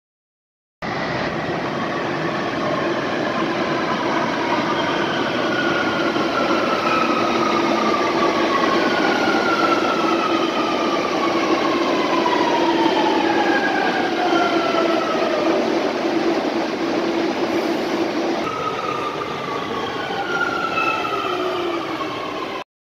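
Metrovalencia electric train running along an underground station platform, with a steady rumble and several whines that glide down in pitch.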